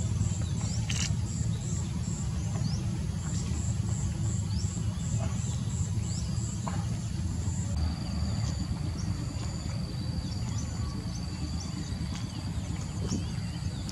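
Insects calling high in pitch: a pulsing call about three times a second, which gives way about eight seconds in to a steady high trill with short chirps above it. A few brief bird chirps come and go, all over a constant low rumble.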